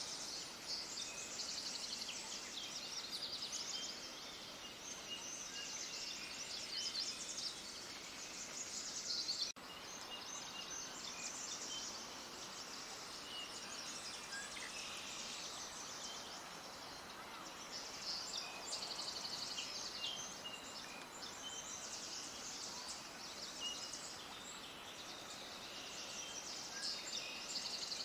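A flock of small birds chirping and twittering in a dense, overlapping chorus over a steady background hiss, with a momentary break about nine and a half seconds in.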